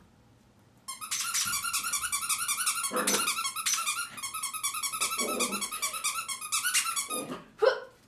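Rapid, high-pitched toy squeaking for about six seconds, with short puppy growls mixed in and one sharp loud yelp near the end.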